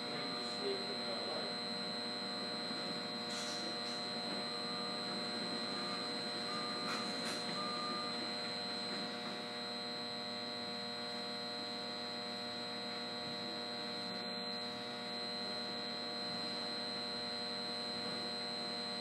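Steady electrical hum from switchgear and equipment cabinets, made of several constant tones with a thin high whine above them.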